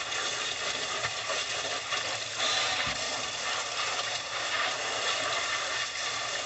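Steady spray of water from a hose nozzle hitting raw pig chitterlings and a plastic tabletop as they are rinsed off.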